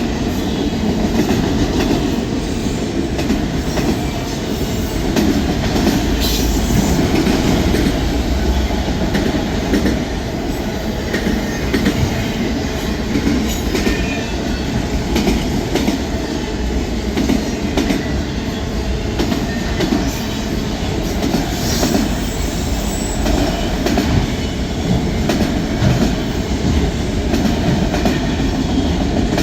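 Freight train cars rolling past, a steady rumble of steel wheels with frequent clicks over the rail joints.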